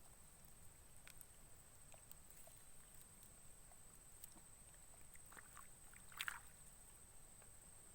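Near silence: faint outdoor ambience with a steady thin high tone, a few small clicks, and one brief crackle about six seconds in.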